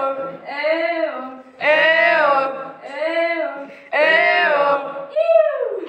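A female voice singing without accompaniment, in about five held phrases of roughly a second each with short breaks between them.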